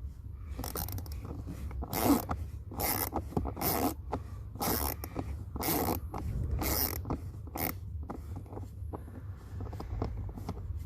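A ratcheting hand driver backing out a T20 Torx screw from the cabin air filter cover, a short rasping ratchet stroke about every two-thirds of a second, about eight in all, stopping a few seconds before the end.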